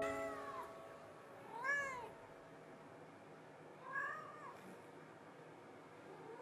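Cat meowing: three short meows that rise and fall in pitch, about two seconds apart, the second the loudest.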